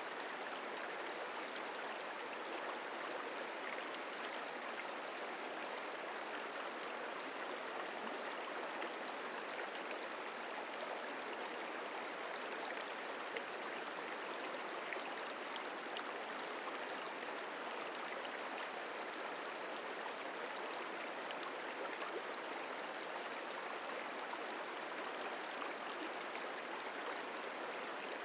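Merced River flowing: a steady rush of running water.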